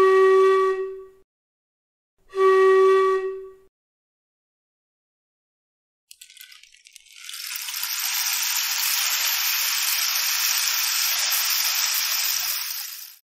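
Two held notes of the same pitch blown on a bamboo suggaypo, about two seconds apart. About seven seconds in, a dahingteuran sample follows: a steady hissing, rattling sound that stops shortly before the end.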